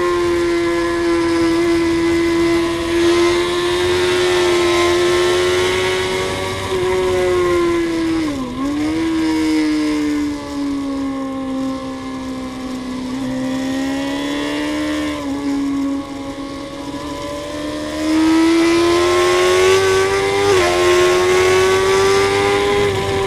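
Onboard sound of a Suzuki GSX-R sportbike's inline-four engine at high revs on track, with wind rushing past the microphone. The engine note dips sharply and recovers about eight seconds in, sags for a while, then climbs again with brief steps at gear changes.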